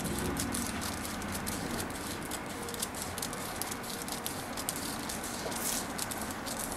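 Scissors cutting through a paper sewing pattern: a continuous run of short, crisp snips and paper crackle.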